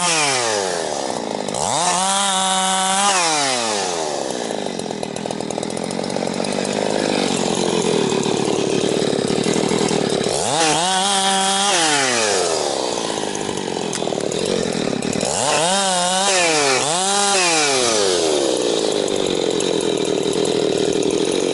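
Husqvarna 365 two-stroke chainsaw cutting wood. The engine revs up and drops back several times between stretches of steady running under load in the cut.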